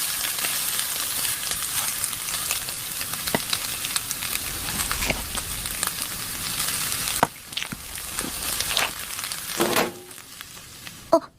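A steady crackling hiss with scattered sharp pops, cutting down sharply about seven seconds in to fainter scattered clicks.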